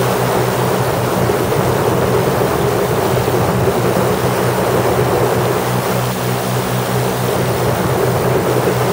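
Lazair ultralight's twin two-stroke engines and propellers droning steadily in level flight, with a heavy rush of wind over the microphone in the open seat.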